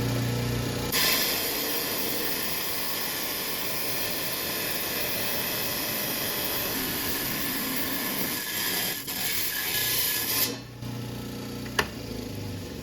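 A 10-inch Hi-tech Diamond lapidary slab saw cuts a slab from a Lake Superior agate. From about a second in, the diamond blade hisses steadily through the stone over the motor's hum. About ten and a half seconds in the hiss stops as the cut finishes, the motor runs on, and there is a single click near the end.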